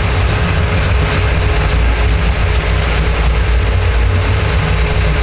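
Powerboat engine running with a steady low rumble.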